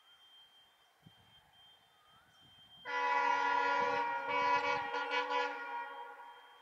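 Horn of an EMD WDP4 diesel locomotive sounding one long blast of about three seconds, starting abruptly about three seconds in. It breaks up briefly a few times midway and fades off near the end.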